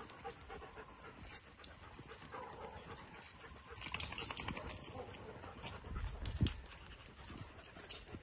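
Dogs panting as they walk, with scattered light scuffs and a low thump about six seconds in.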